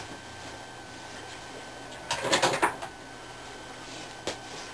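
Short burst of knocking and rustling from objects being handled, about two seconds in, over a steady low room hum; a single sharp click near the end.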